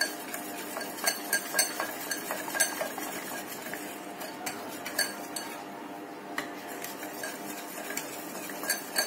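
Wire whisk beating thin ragi-flour batter in a ceramic bowl, with a soft wet stirring and quick irregular clicks of the wires against the bowl. More water is being whisked in to thin the batter and break up lumps.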